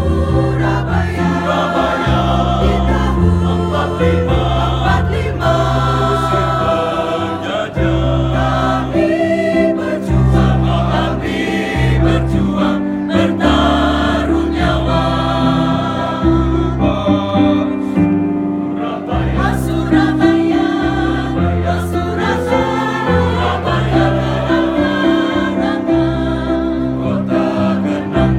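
A band playing a song, several voices singing together over a bass line that moves in steps.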